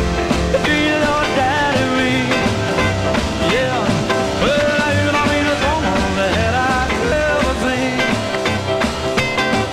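Rock-and-roll music with a steady beat, an instrumental stretch between sung verses.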